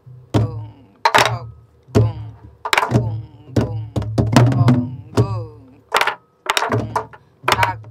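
Sori-buk, the Korean pansori barrel drum, played in a steady jangdan rhythm: deep palm thumps on the drumhead and sharp stick cracks, the strong strokes a little under a second apart. A voice sounds along between the strokes.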